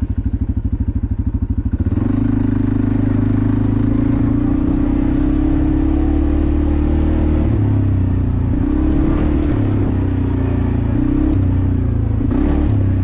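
ATV engine running at low revs with an even pulsing, then throttled up about two seconds in and running steadily under load, its pitch rising and falling with the throttle.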